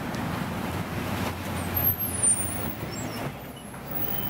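Road traffic, a steady rumble of passing cars, with two short louder sounds about two seconds in.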